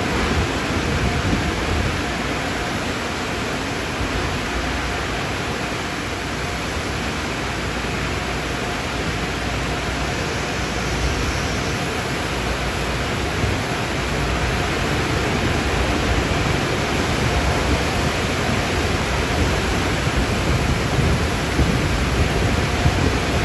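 Car wash machinery running: a steady rushing noise with no clear pitch, like water spray and air blowers.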